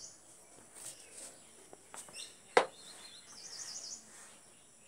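Faint bird chirps and warbling in the background, with one sharp click about two and a half seconds in.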